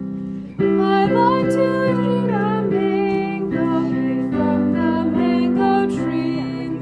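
Instrumental music in the style of a children's song: sustained keyboard-like chords with a gentle melody line over them, a new phrase starting about half a second in.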